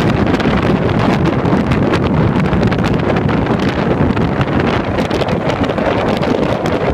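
Wind blowing across the microphone: a loud, steady noise with no distinct events.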